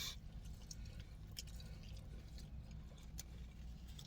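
Faint chewing and mouth sounds of someone eating, a few soft scattered clicks over a low steady hum.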